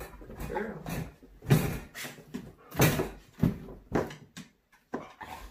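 A series of knocks and clatters from a plastic dog crate as a dog climbs in. Its wire door swings and bangs shut.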